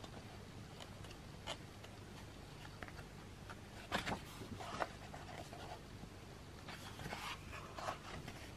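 Paper pages of a bound notebook being turned by hand: soft rustles and flicks, with two sharper page flicks about four and five seconds in.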